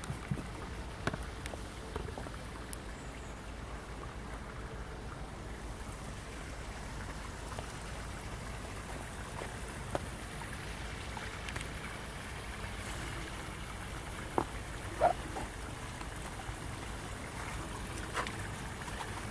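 Steady rush of flowing river water, with a few short sharp knocks, the two loudest close together about three-quarters of the way through.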